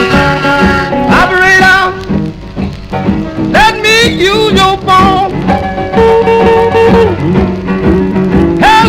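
A 1952 blues recording playing from a 45 rpm vinyl single on a turntable: a small band with guitar and harmonica, with long held notes that bend in pitch twice.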